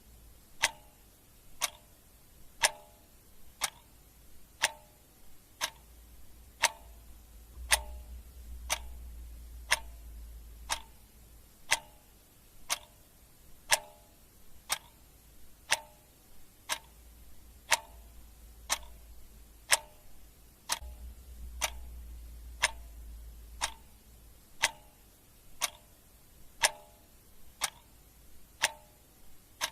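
Clock ticking steadily, about one tick a second, over a faint low hum.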